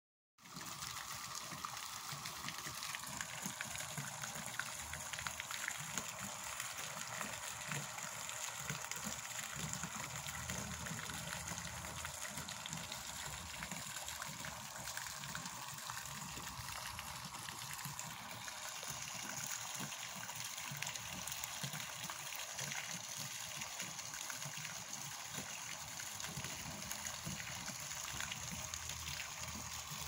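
Small garden-pond fountain jets spraying and splashing steadily into the pond water.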